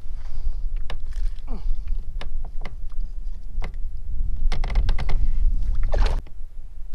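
Wind rumbling low on the microphone, with scattered clicks and knocks as a largemouth bass is handled and unhooked in a plastic kayak, and a short rush of noise about six seconds in.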